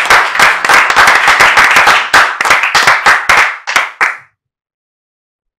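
Audience applauding, the clapping thinning out to a few last separate claps and stopping about four seconds in.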